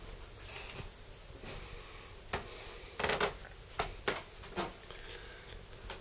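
Footsteps and handling noise of someone walking through rooms: a handful of soft, irregular knocks and brief rustles, the loudest cluster about three seconds in.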